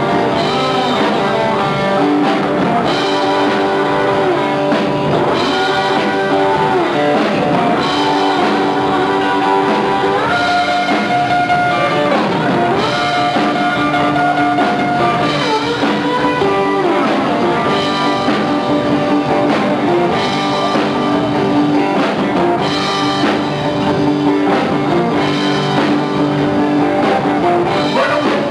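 Live rock band playing an instrumental stretch with no singing: electric guitars over bass and drum kit, with long held guitar notes, several of them bending in pitch.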